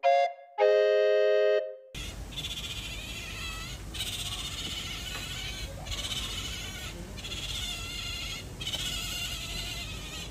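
A short bright keyboard jingle for the first two seconds, then Asian small-clawed otters giving a continuous chorus of high-pitched squeaks and chirps. The calls come in waves with brief lulls, the excited calling these otters make at feeding time.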